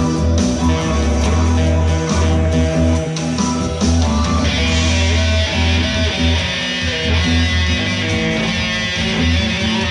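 Electric guitar played through an amplifier, with a strong low bass underneath; the sound gets fuller about four and a half seconds in.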